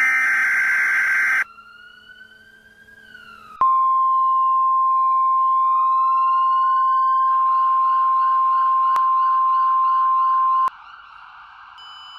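Emergency Alert System alert tones: the last burst of the buzzing digital header, then a siren wailing up and down. About three and a half seconds in, a loud steady weather-radio 1050 Hz attention tone starts and holds for about seven seconds, with the siren still wailing underneath and turning to a fast warble partway through.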